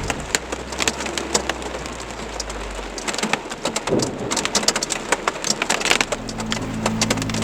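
Heavy rain with hail pelting a hard surface: a steady rush thick with sharp, irregular ticks of hitting stones and drops, under a low rumble in the first three seconds. Music comes in about six seconds in.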